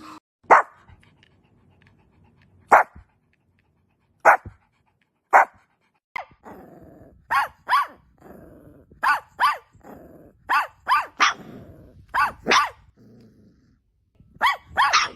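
A dog barking in short, high-pitched yips, some singly and many in quick pairs, about seventeen in all. A low growling rumble runs under the barks through the middle stretch.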